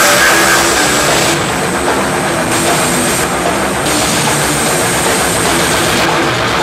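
Death-thrash metal band playing live: loud distorted electric guitars and bass over fast, steady drumming.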